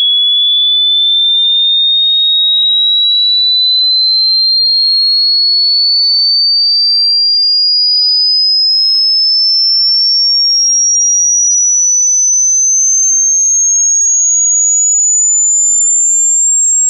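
Hearing-test sine tone, a single pure high-pitched whistle that glides slowly and steadily upward in pitch at an even loudness.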